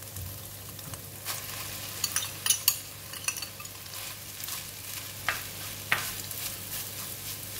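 Rice stir-frying with kailan and egg in a hot nonstick pan: a steady sizzle, with a metal spoon clicking and scraping against the pan several times.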